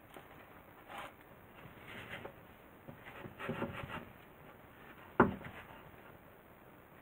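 A spatula mixing soft, sticky bread dough in a glass bowl: soft squishing and scraping, then a single sharp knock a little past five seconds in.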